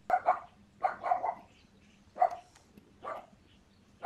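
A dog barking repeatedly: short barks, singly and in quick pairs, about once a second.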